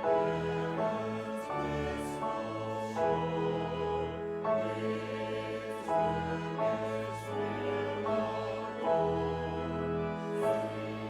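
A hymn sung by voices with sustained organ accompaniment, the held chords moving on about once a second.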